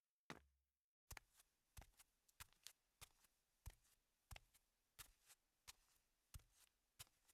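Faint footsteps of a person walking at an easy pace on a carpeted hallway floor: soft, slightly uneven clicks and thuds, a little under two a second.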